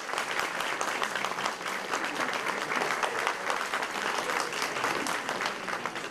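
Audience applauding: dense, steady clapping that begins to ease off near the end.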